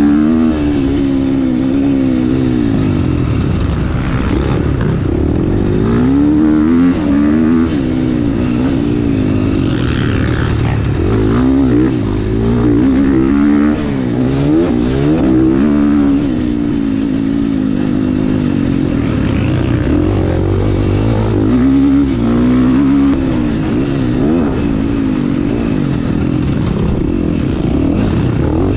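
Several dirt bike engines revving up and down at once, their notes rising and falling over one another without a break.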